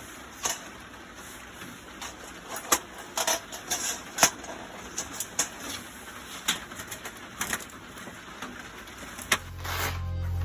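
Wood fire burning in a folding steel fire pit, crackling with irregular sharp pops. Music fades in near the end.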